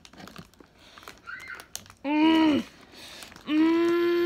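Faint clicks and rustles of cardboard packaging being handled, then two held, straining vocal hums from a boy pulling at hot-glued packaging, the second longer.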